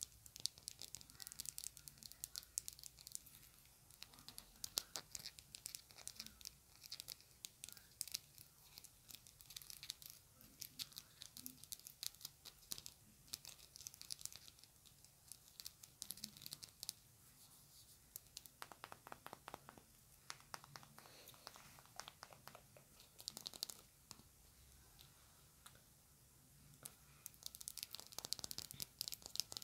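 Fast tapping of long acrylic fingernails on a small white plastic container: quick, light, crisp clicks in bursts with short pauses between them.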